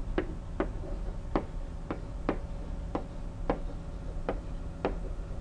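Sharp plastic clicks of a pen stylus tapping against an interactive whiteboard as words are handwritten on it, about one to two a second at uneven spacing.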